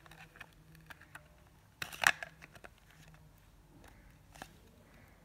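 Handling noise from the opened plastic case of a battery internal resistance tester being turned over in the hands: scattered light clicks and knocks, with a louder clatter about two seconds in and one more click near the end.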